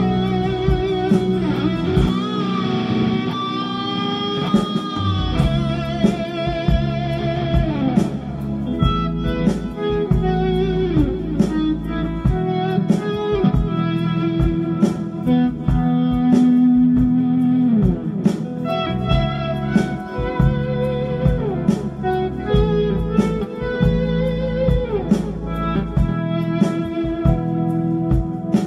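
Electric guitar playing an improvised melodic lead, with string bends and vibrato, over a backing track of drums and bass.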